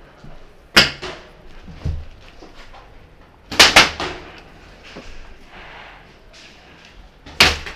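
Paintball marker shots, sharp pops: one about a second in, two in quick succession around the middle, and one more near the end, with fainter knocks between.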